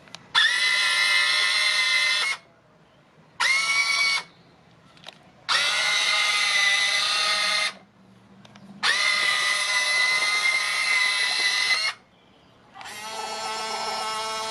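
Top Race TR211M RC excavator's electric motors and metal gear drives whining in five separate runs of one to three seconds as the machine's functions are worked by remote control. The last run, near the end, is lower in pitch.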